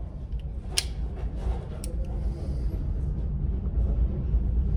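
A sharp metallic click as the Stevens Model 35's tip-up barrel snaps shut on a loaded .22 round, then a fainter click about a second later, over a steady low rumble.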